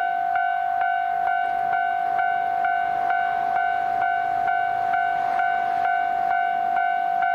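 Level-crossing warning bell ringing steadily, struck at an even beat of about two strokes a second over a continuous ringing tone, sounding as the crossing is closed for a train.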